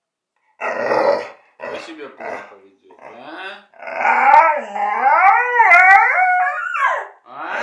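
Pit bull grumbling in a few short bursts, then giving a long, wavering howl-like moan that rises and falls in pitch, about three seconds long from around four seconds in. It is the dog's appeasing 'apology' to being scolded.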